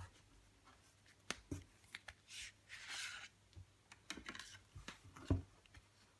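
Cardboard and paper CD album packaging handled by hands: scattered light taps and clicks, card sliding and rubbing against card in two swishes near the middle, and one louder knock a little past five seconds in.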